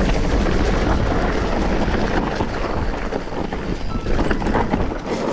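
Mountain bike descending a dry, rocky trail: a steady rushing noise of tyres rolling over stones, full of small knocks and rattles from the bike. It eases off near the end.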